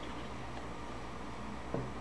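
Steady low background hum with one faint tap near the end.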